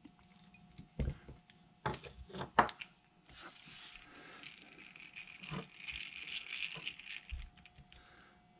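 Antique Miller Falls No. 5 hand drill being handled and cranked. First a few sharp metal clicks and knocks, then about four seconds of fine, rapid clicking as the gear wheel and pinions turn, and a low thump near the end.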